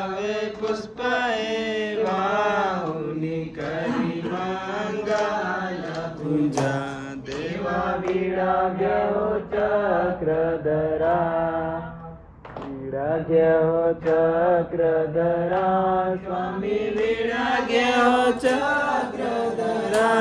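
A man's voice singing a devotional chant, with hand claps. The singing pauses briefly about twelve seconds in.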